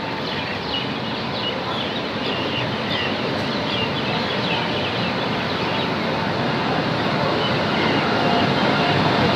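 WAP-7 electric locomotive moving off along the platform: a steady rumble of wheels and running gear that grows louder as it draws alongside.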